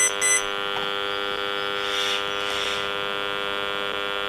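An RF meter's speaker turns the radio signal of a DECT cordless phone base station into a steady electric buzz made of many evenly spaced tones. A pulsing high beep from the meter, about three a second, cuts off about half a second in.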